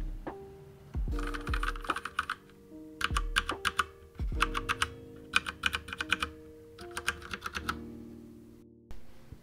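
Typing on a Durgod 87-key mechanical keyboard with Cherry Brown switches: several short bursts of rapid key clacks with brief pauses between them.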